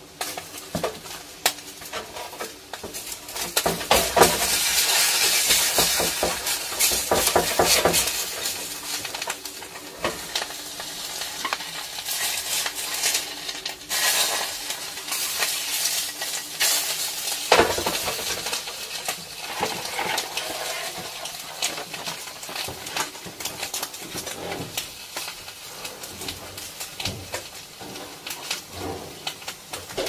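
Food frying in a pan with a steady sizzle, while a utensil stirs and scrapes it, giving many quick clicks and knocks against the pan. The sizzle and stirring are loudest a few seconds in, then settle.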